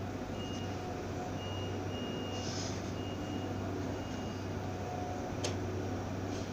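About five high-pitched electronic warning beeps of about half a second each, in an uneven series, over a steady low hum. A single sharp click comes near the end.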